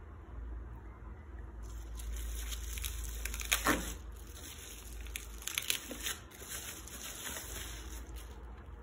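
Plastic bubble-wrap packaging crinkling and rustling as magazines are handled and slid apart in a cardboard box. It starts a little under two seconds in, with a few sharper crackles around the middle.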